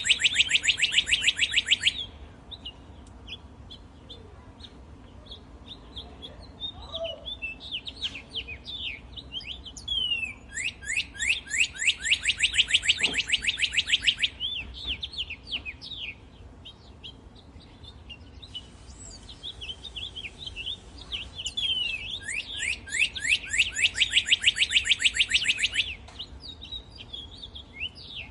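Birds chirping and singing, with loud rapid trills of quick rising notes that last a few seconds each: one near the start, one about halfway through, and one near the end. Softer scattered chirps fill the gaps between the trills.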